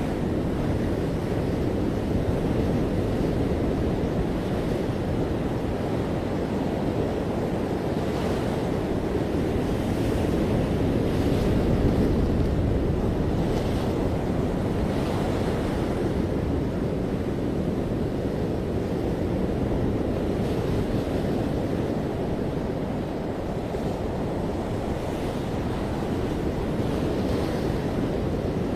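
Ocean surf at a beach: a steady wash of breaking waves that swells a little about twelve seconds in, with wind rumbling on the microphone.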